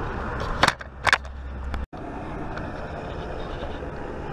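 Two sharp knocks about half a second apart over a steady background rumble, with the sound cutting out for a split second just before the middle.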